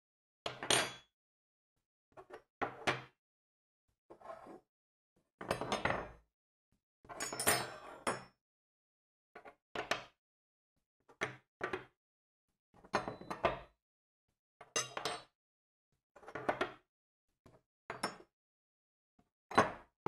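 Metal cutlery being set down on a table one piece or handful at a time: about a dozen short clatters of clinks, each ringing briefly, spaced roughly every second and a half with silence between.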